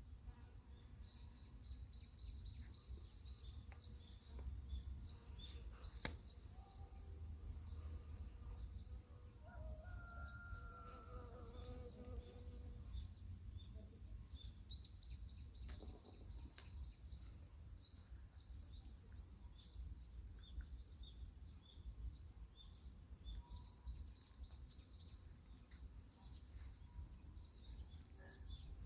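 A small bird singing a short, high, rapid trill that recurs three times, with scattered faint chirps, over a low steady rumble.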